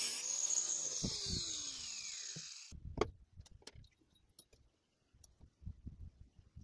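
Angle grinder with an abrasive cutting disc whining as it finishes a cut through a rusty steel bar, then switched off, its pitch falling steadily as the disc spins down, with two thumps about a second in. Then a sharp knock and faint light taps on wooden boards.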